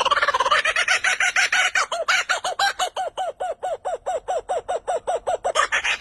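A bird calling in a fast run of short, repeated pitched notes, about five a second, packed closely at first and spacing out from about two seconds in.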